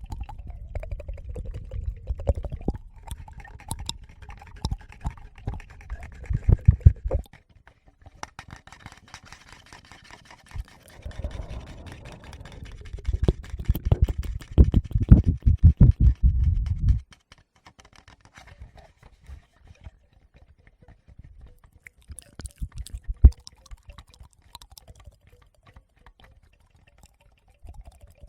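Fingers rubbing and tapping directly on a Tascam recorder's microphones, giving a loud low handling rumble full of small clicks in two long stretches. In the last third it drops to a quiet stretch of sparse light clicks with one sharp tap.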